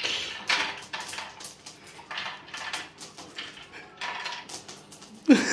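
Dry dog kibble clattering against a feeding bowl as dogs eat, a run of quick irregular rattles. A dog gives a short falling whine near the end.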